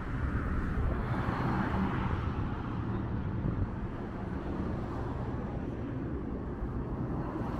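Road traffic on a city bridge: cars driving past close by, their tyre and engine noise swelling about a second in and then easing, over a low steady rumble.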